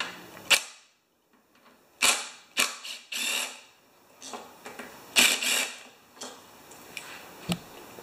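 Sharp metal clicks, scrapes and short clatters, scattered with brief pauses, as a nut driver backs out the ignition coil's mounting bolts on a Honda HR194 mower engine and the coil is worked free from beside the flywheel.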